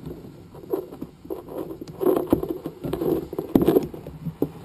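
Hands working a 2014 Cabrinha kite bar's safety release close by: rustling of line and elastic with scattered light clicks and scrapes of the plastic and metal release parts, busiest in the middle to later part.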